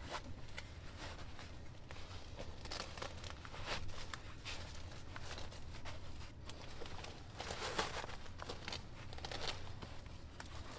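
Crye JPC 2.0 plate carrier's nylon fabric rustling and scraping as a medium civilian SAPI-cut armor plate is forced into its stretch-panel plate pocket. Irregular crinkling scuffs, stronger around four and eight seconds in.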